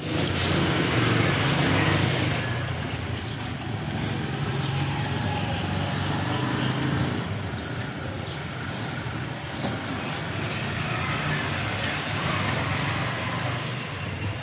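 A motor vehicle engine running with a steady low hum, strongest for the first several seconds and weaker after, over a constant background hiss.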